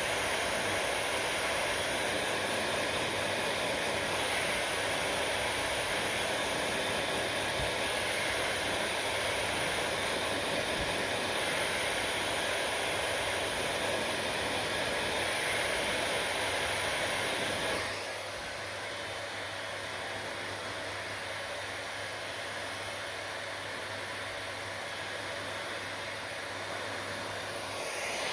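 Hair dryer blowing, a steady rushing hiss with a low hum. About two-thirds of the way in it drops to a quieter, duller level, and it comes back up at the very end.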